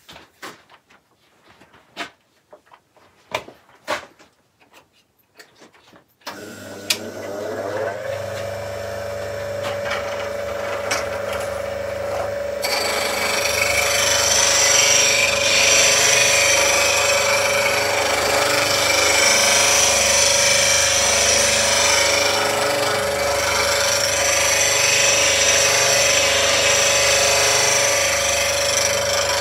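A few light clicks, then about six seconds in an Axminster Trade slow-speed bench grinder is switched on, runs up to speed and settles into a steady hum. From about twelve seconds a woodturning chisel held in a jig is pressed against the wheel, adding a steady, high-pitched grinding that lasts to the end.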